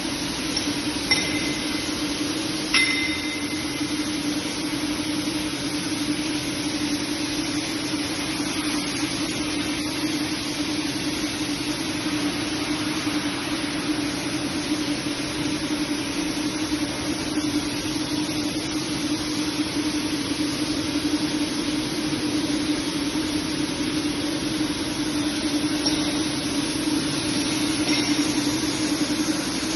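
Impact pulveriser grinder running steadily: a constant motor hum under a broad rushing noise. Two sharp metallic clinks come in the first three seconds.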